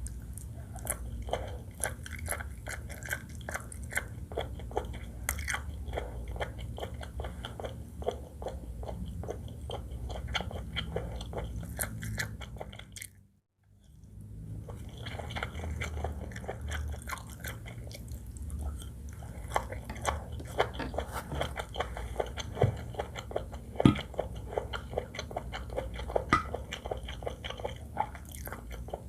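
Close-miked chewing and biting of seafood fried rice with shrimp, crab and squid: a dense run of wet mouth clicks and crunches. About halfway through it drops out to near silence for a moment, then resumes.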